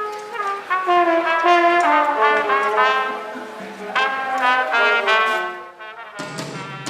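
Brass instruments, trumpet- and trombone-like, play a run of melodic phrases in a live soundcheck. About six seconds in, the drum kit and the rest of the band come in abruptly.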